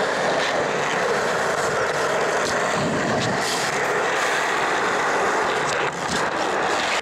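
Wheels rolling over concrete close to the microphone: a steady rushing roar with a short dip and a knock about six seconds in, cut off abruptly at the end.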